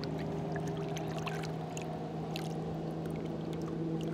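Water sloshing and splashing beside a boat as a large snook is held by the jaw in the water and revived for release, with small splashes and drips throughout and a stronger splash near the end as the fish kicks. A steady engine hum runs underneath.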